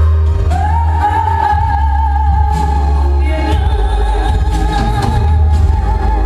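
A song with a heavy bass, in which a singer slides up into one long high note about half a second in and holds it with vibrato.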